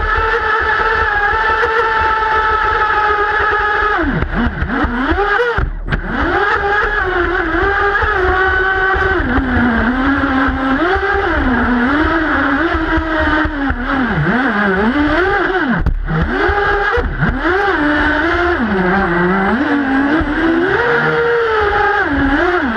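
Twin-engine RC boat's motors running under the onboard camera. They hold a steady pitch for about four seconds, then rise and fall again and again as the throttle is worked, with a brief cut-out about six seconds in.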